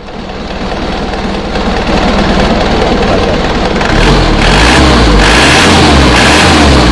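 Isuzu Panther diesel engine running and being revved, growing louder through the first seconds and louder again about four seconds in. Its alternator drive belt has just been retightened to cure a squeal under throttle.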